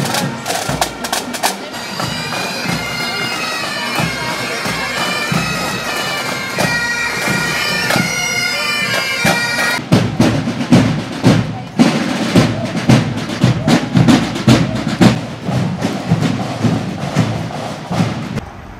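Pipe band playing: bagpipes sound a melody over their drone, with drums beating under them. About ten seconds in, the drums become the loudest part, playing a steady beat, until the sound drops away just before the end.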